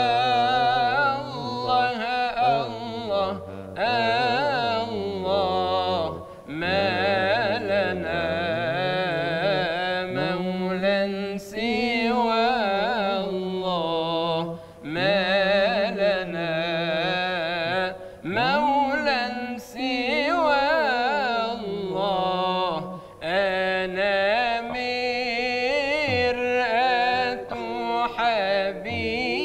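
Male munshid singing Sufi devotional inshad: long melismatic runs with wavering, ornamented pitch on held vowels, broken every few seconds by short pauses for breath.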